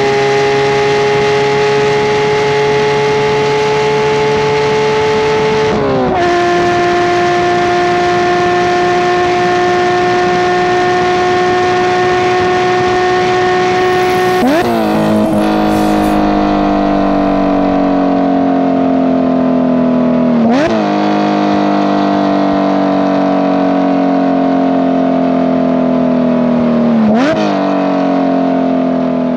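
Porsche 992 GT3's naturally aspirated flat-six running through a Valvetronic Designs valved stainless exhaust with 200-cell headers, heard while driving. Revs climb slowly, then drop with a gear change about six seconds in; later the revs sag steadily, broken by three quick throttle blips as it changes gear.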